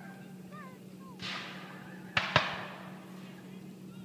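Black-powder gunfire: a duller report about a second in, then two sharp cracks in quick succession a little after two seconds, the second the loudest, each trailing off with an echo.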